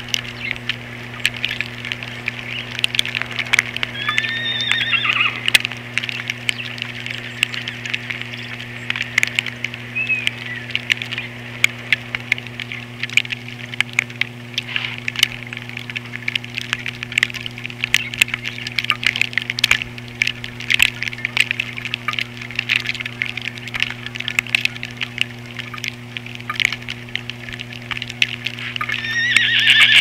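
Birds at a seed feeder: frequent small clicks and taps from feeding, a few short bird calls around four seconds in, and a louder burst of calls near the end, over a steady electrical hum.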